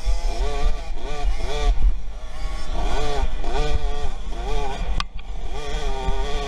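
Motocross bike engine revving up and dropping back over and over, each rise and fall lasting about half a second, with a short dip about five seconds in.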